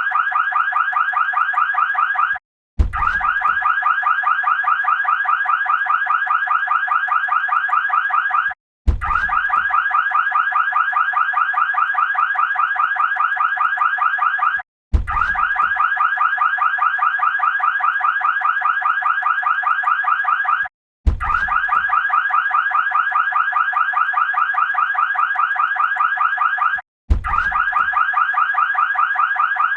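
Ecto-1 siren wailing with a fast, steady warble. It cuts out for a moment about every six seconds and restarts with a low thump each time.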